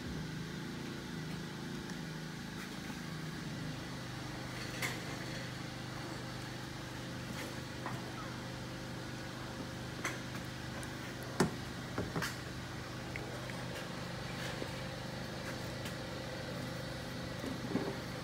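Engine oil poured from a bottle into a new spin-on oil filter to prime it, over a steady low machine hum, with a few light knocks.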